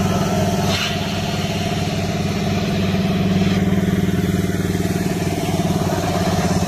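An engine idling steadily, an even low hum with a fast regular beat that does not change in pitch or level.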